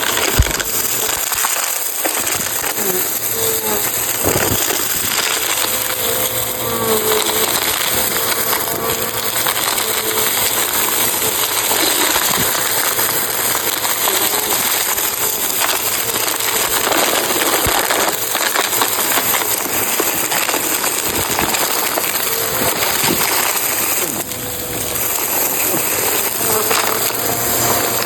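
Bissell CleanView Rewind upright vacuum running over a rug, crunching and rattling as it sucks up scattered coins, beads and fluff, with many sharp clicks of debris going up through it over a steady motor hum.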